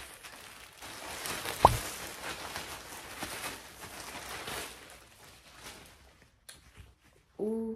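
Plastic polybag packaging rustling and crinkling as clothing is pulled out of it, with one sharp thump about one and a half seconds in. The rustling dies down over the last couple of seconds.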